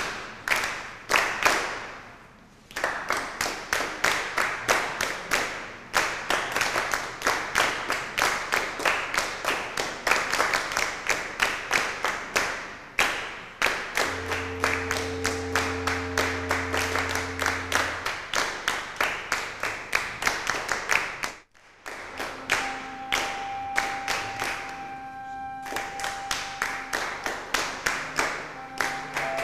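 Many hands clapping together in a steady rhythm, about three to four claps a second. About halfway through, held orchestral notes sound under the clapping for a few seconds and return near the end. The sound drops out briefly about two-thirds of the way in.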